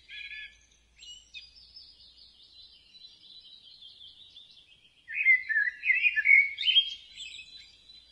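Birds chirping and singing in quick, warbling phrases, growing louder and busier from about five seconds in.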